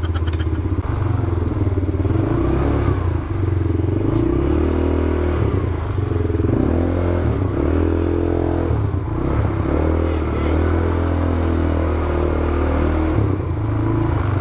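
A new 200cc ATV engine running during a test ride, its revs shifting up and down under gentle throttle, as the engine is still being broken in.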